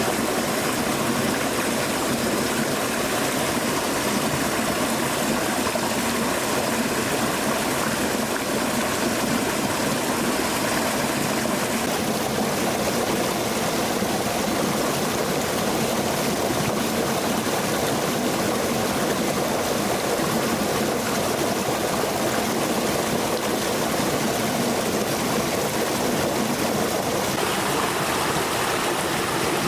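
Stream water flowing steadily, a continuous rushing sound.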